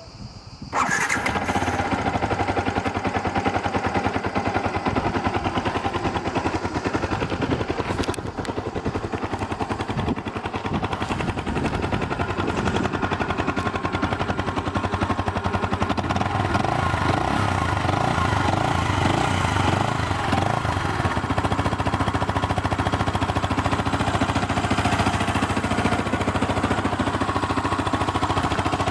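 A Yamaha YZF-R125's 125 cc single-cylinder four-stroke engine, on its stock exhaust, starts about a second in and then runs steadily, with an even rapid pulse of firing strokes.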